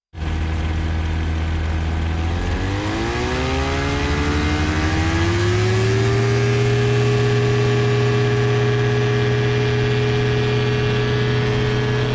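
Rebuilt Rotax engine of an ultralight aircraft running at power, its pitch rising over a few seconds as it throttles up and then holding steady, as on the takeoff run.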